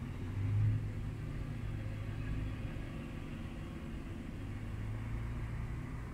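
Heavy truck's diesel engine running at close range, a low steady rumble that is loudest about half a second in.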